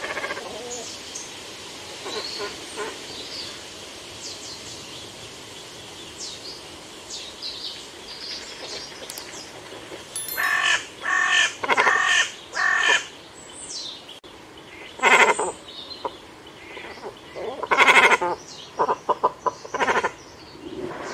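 Birds calling: faint, high, short chirps, then from about halfway loud, harsh, repeated calls in clusters, with a quicker run of short calls near the end.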